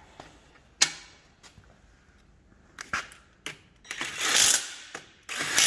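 A hand-held cordless drill is run in two short, harsh bursts against the steel differential housing, about four and five seconds in. Before that come a sharp metallic click and a few lighter clicks of tool handling.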